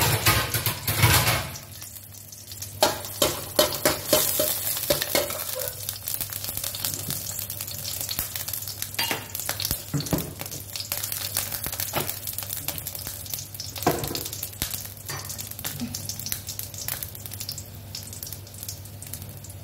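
Green chillies sizzling in a little hot oil in a thin, light kadhai, louder in the first second or two. A spatula clicks and scrapes against the pan as they are stirred.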